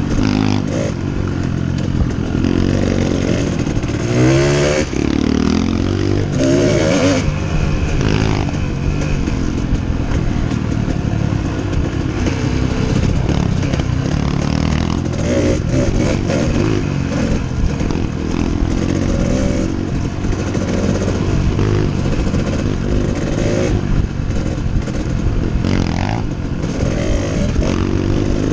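Kawasaki KDX two-stroke dirt bike engine under way on a trail, revving up and easing off several times as the throttle is worked, with clatter from the bike running over bumps.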